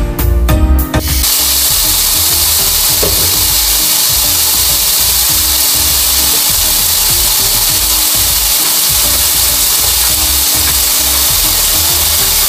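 Pork steaks sizzling on an electric ridged grill pan, a steady loud hiss of frying meat. The first second is louder and choppier.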